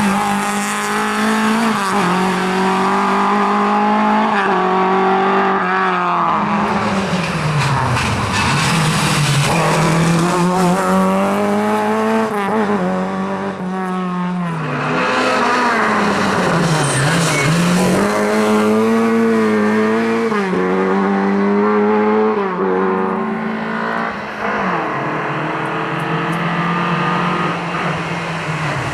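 Rally car engine revving hard on a stage, its pitch climbing and then dropping sharply again and again as it changes gear and lifts off.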